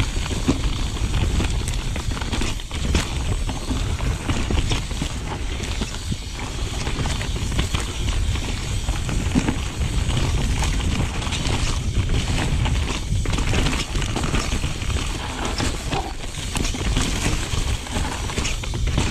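Mountain bike ridden over a rough dirt trail: a constant low rumble with dense, irregular clattering and rattling of the bike over the ground.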